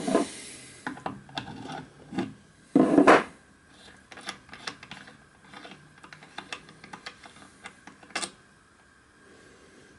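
Brass safety valve being loosened with an adjustable spanner and then unscrewed by hand from its fitting: metal rubbing and rasping, with a louder half-second rasp about three seconds in, then scattered light clicks.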